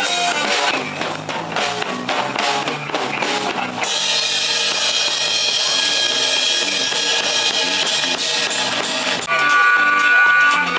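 Instrumental passage of a band's song, with no singing: drum kit and guitar playing. About four seconds in it turns brighter and fuller, and held high notes come in near the end.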